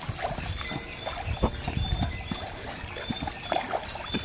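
Swimming-pool water splashing and sloshing as a dog and a person move about in it, with a few sharp slaps and splashes scattered through, the loudest about a second and a half in and near the end.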